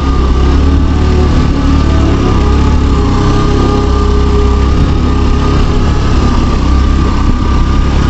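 Motorcycle engine running steadily while the bike is ridden along.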